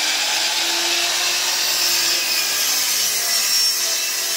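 DeWalt miter saw running steadily at full speed, its blade cutting a 45-degree miter through a treated-lumber 2x4.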